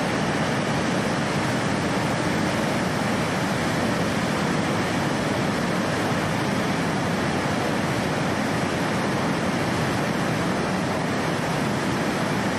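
River in flood pouring over a weir: a loud, steady rush of turbulent water.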